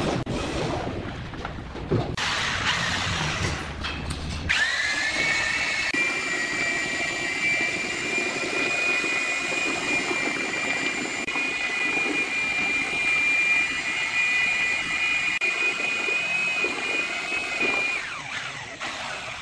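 Electric drill with a paddle mixer stirring plaster in a plastic bucket. About four and a half seconds in, the motor spins up with a quickly rising whine, then runs at a steady pitch, and it stops near the end.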